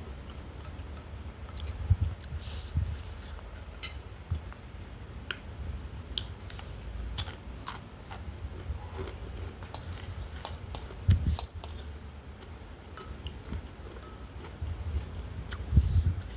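Close-up eating sounds from a ramen mukbang: chewing, with scattered small clicks and clinks of utensils and a few low thumps.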